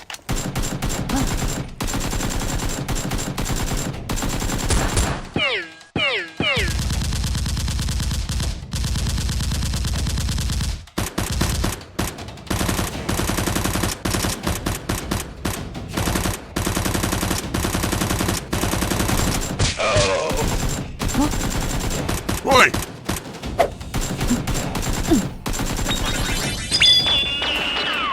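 Sustained rapid gunfire, dense automatic bursts with short breaks, the kind of gun sound effect laid over a Nerf blaster battle. A few short shouts rise and fall over it.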